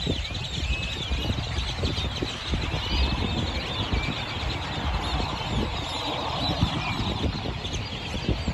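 Large flock of black birds calling all at once: a dense chatter of many overlapping short chirps and squeaky rising and falling calls, over a low rumble.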